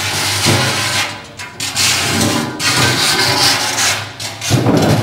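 Desmolisher, a steel wedge-shaped combat robot, driving across a concrete floor with a man seated on it: a loud, rough grinding and scraping noise that eases briefly twice and surges back.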